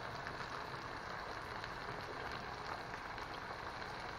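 Gouda cheese being grated on a stainless steel box grater: irregular scraping strokes over a steady background hiss.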